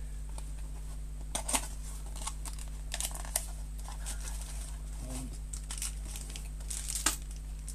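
Packaging rustling and crinkling in irregular bursts as a wall socket with USB ports is unpacked by hand, with a few sharper handling clicks; the sharpest comes near the end.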